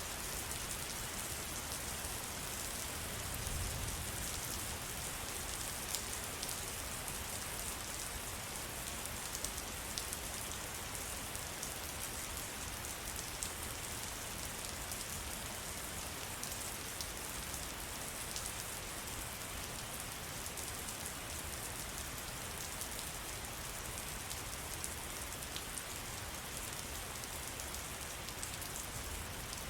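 Steady rain falling in a forest: a dense, even hiss with many single drops ticking through it, and a brief low rumble about three and a half seconds in.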